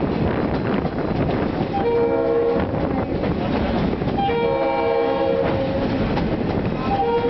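Excursion train locomotive's air horn sounding a multi-note chord: a short blast about two seconds in, a longer one about four and a half seconds in, and another starting near the end. This is a warning for the road crossings along the street. Underneath runs the steady rumble of the moving train's wheels and wind.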